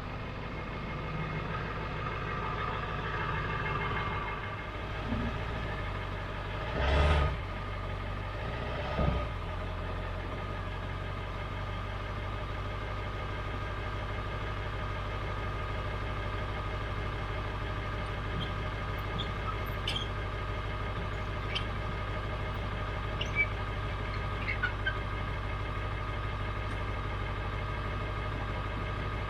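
An engine idling steadily, with two short louder thumps about seven and nine seconds in.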